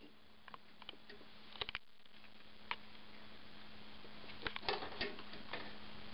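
Scattered light clicks and taps, a few in quick clusters, over a faint steady hum: brushes and painting tools being handled and set down.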